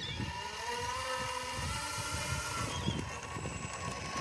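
Four Sunnysky 2212 1250 kV brushless motors turning 8x4 three-blade propellers on a large RC Lockheed L-1049 Super Constellation model as it taxis. They make a buzzing whine that rises in pitch early on and falls back later, over a low rough rumble.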